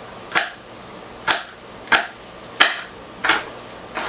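Kitchen knife slicing through fresh rhizomes and knocking on a cutting board, about five cuts roughly two-thirds of a second apart.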